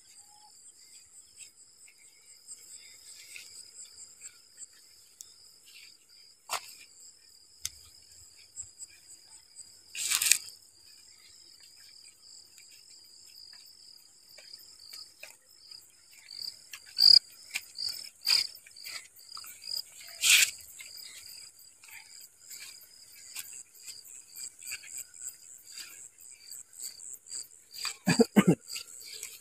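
Crickets and other night insects calling steadily, a regular pulsing chirp over a high continuous trill. Scattered sharp clicks and knocks from footsteps on the dirt bank, loudest near the end.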